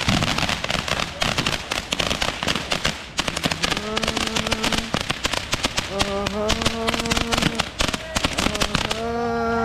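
Fireworks crackling in a dense, rapid string of pops that cuts off suddenly near the end. In the second half a steady held tone sounds three times over the crackle.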